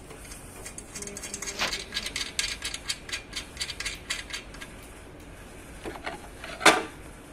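Small metallic clicks and rattles as a bolt is fitted by hand into a metal bracket on an exercise machine's frame, with one sharper click near the end.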